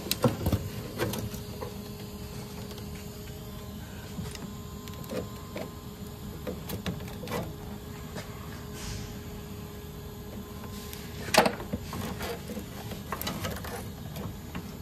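Scattered small clicks and knocks of hands and a tool working on a nylon fuel line and its plastic quick connect, with one sharper, louder snap about eleven seconds in. A faint steady hum runs underneath.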